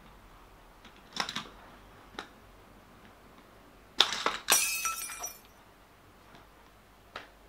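Hot Wheels die-cast toy car clicking along a plastic track. About four seconds in it crashes off at a corner: a loud hard impact and about a second of rattling, ringing clatter.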